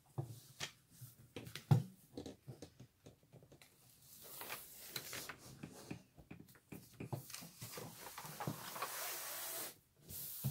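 Hands handling and smoothing a large canvas sheet covered with plastic film. There are light taps and crinkles, with a knock about two seconds in, and from about four seconds in a long sliding rub of hands across the sheet.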